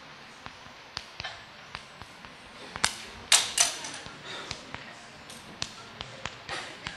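Chalk writing on a chalkboard: irregular sharp taps as the chalk strikes the board, with short scratchy strokes, the longest about halfway through and again near the end.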